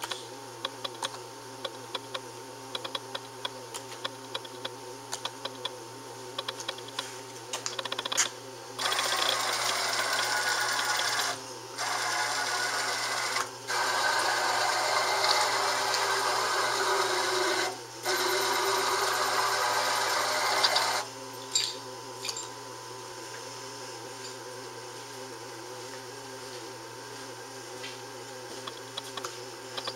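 Hardinge Omniturn CNC lathe running through a cycle: a steady machine hum with a wavering drone and light ticking. About nine seconds in, a much louder rushing hiss starts and runs for about twelve seconds, broken by three brief pauses, then stops and the hum goes on.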